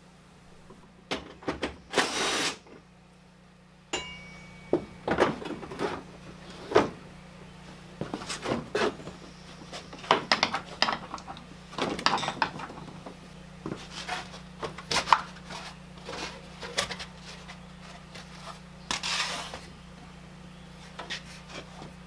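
Hand tools and car parts being handled while a wheel and plastic inner fender liner are removed: scattered knocks, clicks and clatter over a steady low hum, with two short hissing bursts, one about two seconds in and one near the end.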